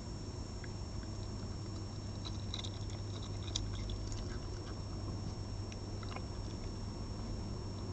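Red fox eating from a feeding plate: small, scattered wet clicks of chewing, busiest in the middle of the stretch. Underneath is a steady low electrical hum and hiss.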